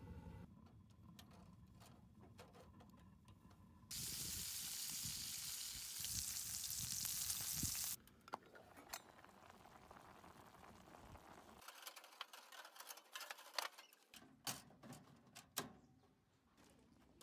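Small wood-burning galvanized-steel can stove in use: a steady hiss for about four seconds in the middle, louder partway through, then scattered light metallic clicks and knocks as the stove and the pot on it are handled with leather gloves.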